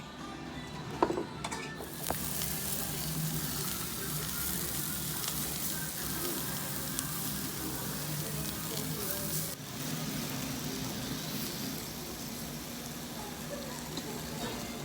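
A short knock about a second in, then food sizzling on a hot surface. The sizzle starts suddenly, is loudest for several seconds, then drops back a little about halfway through and keeps going.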